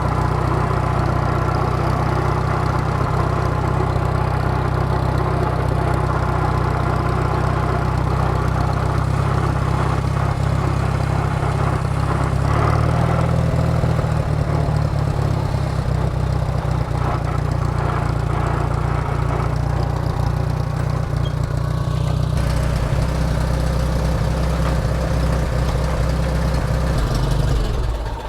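Farmall 140 tractor's four-cylinder gasoline engine running steadily, then shut off near the end.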